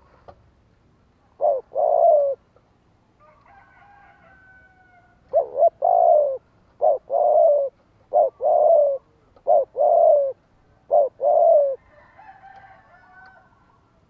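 Spotted dove cooing: six phrases, each a short note followed by a longer falling coo. The first stands alone and the other five follow in a steady run about a second and a half apart. Fainter, higher bird calls sound in the gaps.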